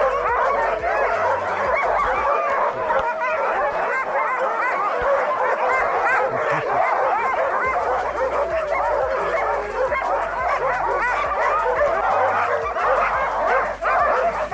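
A large pack of harnessed sled dogs barking and whining all at once, many voices overlapping in a continuous chorus with pitches rising and falling. It is the typical clamour of sled dogs hitched up and eager to run before the sleds set off.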